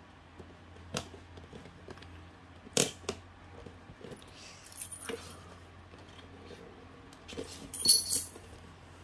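Keys clinking on a ring as a key is scraped along the tape seal of a cardboard toy box to slit it open, with the box being handled. There are a few sharp clicks, a quick double rattle about three seconds in, and the loudest metallic jingle near the end.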